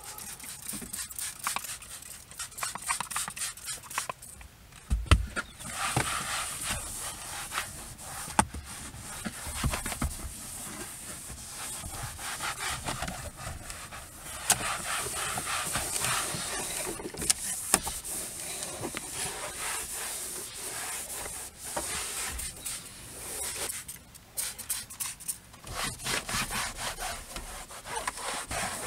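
Microfiber towel rubbing and scrubbing over a leather car seat back and door panel in repeated wiping strokes, with a few knocks, the loudest about five seconds in.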